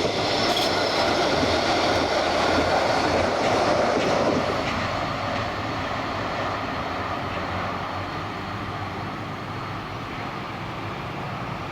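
Gold Coast light rail tram running along its track, loudest for the first four seconds or so and then fading steadily as it draws away.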